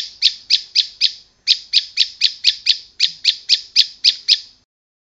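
Prinia (prenjak) calling: a rapid series of sharp, high chirps, about four a second, in three runs of about six notes broken by short pauses, stopping near the end.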